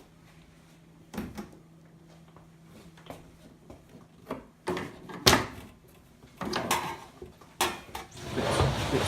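Plastic clips of a dishwasher's bottom inspection cover being unclipped: scattered clicks and knocks of hard plastic, the loudest about five seconds in, with scraping and handling of the panel near the end.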